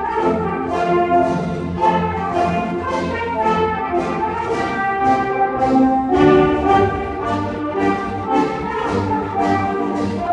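Middle school concert band playing, brass and woodwinds together over a steady beat.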